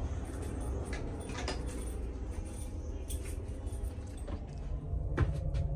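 Steady low drone of a passenger ferry, heard inside a cabin, with a few light clicks and knocks scattered through it, the sharpest about five seconds in.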